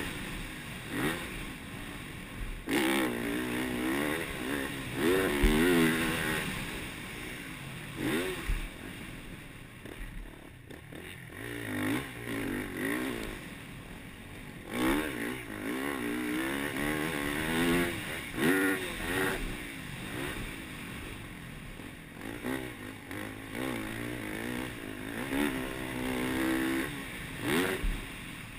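Yamaha YZ450F's four-stroke single-cylinder 450 engine, heard from on board the bike, revving up and down over and over as the rider works the throttle and shifts around a motocross track. Its pitch climbs and drops every second or two.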